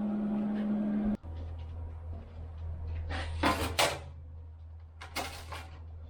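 A steady low hum, with a few short sharp clunks around the middle; for about the first second a louder steady tone sounds and then cuts off abruptly.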